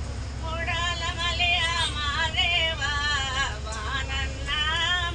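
A song with a wavering sung melody, over the steady low rumble of a moving bus.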